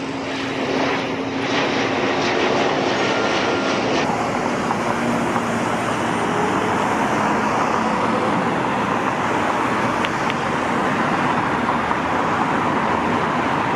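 Aircraft flying overhead, a steady rumble that thickens a few seconds in and holds, with a faint steady whine in it near the end.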